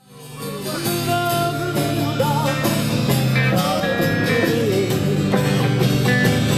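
Guitar-led background music fading in over about the first second.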